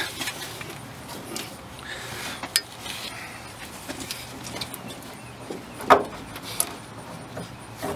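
Hands working a rubber radiator hose onto a water pump neck, with metal hose clamps clinking against it: rustling handling noise and a few sharp clicks, the loudest about six seconds in.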